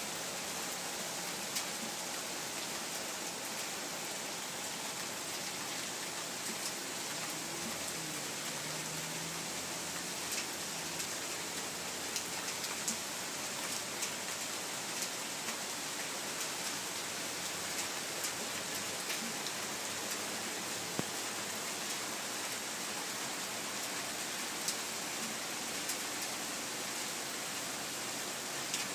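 Steady rain falling, with scattered sharper ticks of single drops landing close by.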